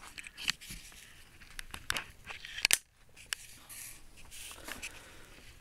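Scattered, irregular light clicks, clinks and knocks of steel being handled on a workbench around a small hand-lever guillotine shear.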